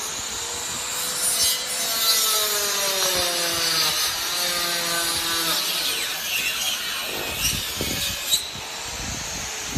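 A power tool running with a harsh, rasping hiss. For the first five seconds or so a whine sounds over it and slowly drops in pitch.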